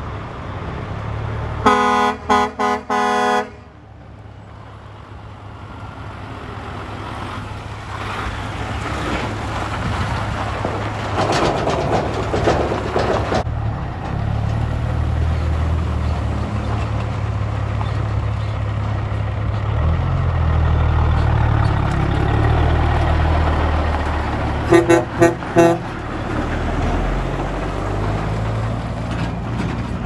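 Semi-truck air horns blown in quick toots: four loud blasts about two seconds in and four shorter ones near the end. Between them, diesel semi trucks with trailers run past, and their engines grow louder as they pull through.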